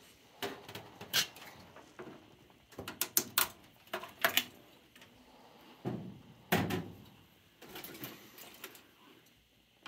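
Parts being pulled out of a gas furnace's sheet-metal cabinet by hand: a string of irregular knocks, clanks and rattles of metal against metal.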